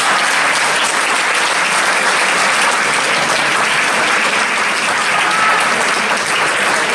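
Audience applauding steadily, a dense clatter of many hands clapping in a concert hall.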